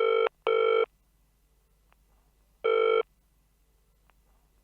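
Telephone ringing: a quick pair of short electronic rings at the start, then a single ring near the middle, each a steady, buzzy tone.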